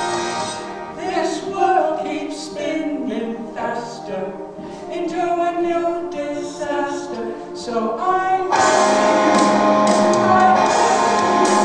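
A woman and a man singing a duet over instrumental backing. About eight and a half seconds in, the music grows fuller and louder.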